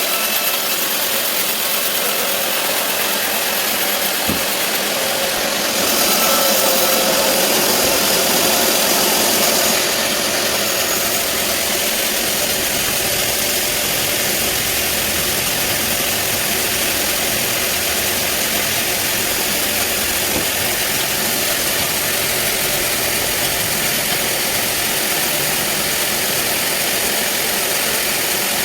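Sawmill band saw running steadily while cutting a teak log, a continuous mechanical noise that gets louder for about four seconds starting around six seconds in.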